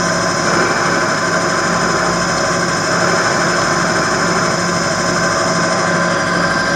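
Small bench lathe running steadily at full speed with a held motor whine, as the cutter takes small passes to turn a cue's ferrule down to size.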